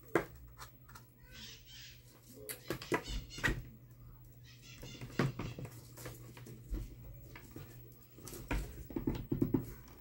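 Scattered light knocks and clicks of metal parts being handled as the rotor is fitted back into a Mallory electric fan motor, over a low steady hum.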